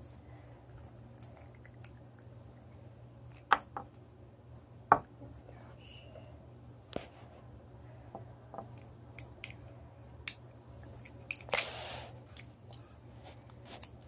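Scattered sharp clicks and taps of small plastic pieces as a Hatchimals toy egg is cracked open along its seams and the little figurines are handled, with a short crackly rustle near the end.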